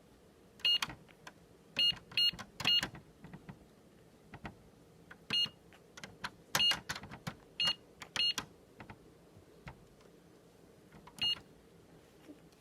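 Toy cash register beeping as its buttons are pressed: about ten short, high beeps, each with a click, at irregular intervals.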